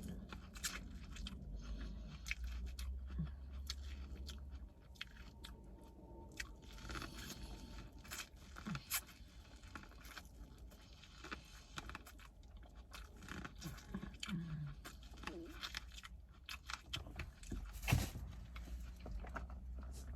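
Close-miked eating sounds of a person chewing and crunching seafood-boil food, with wet mouth clicks and smacks at an irregular pace. There is one louder knock near the end.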